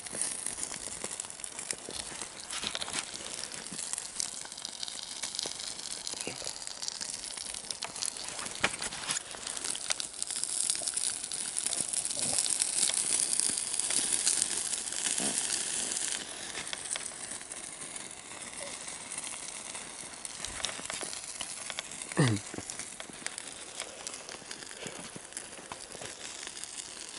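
A trash fire crackling and hissing, with scattered pops and crinkles as the rubbish burns; the hiss swells for several seconds near the middle. About two-thirds through comes one short sound sliding quickly down in pitch.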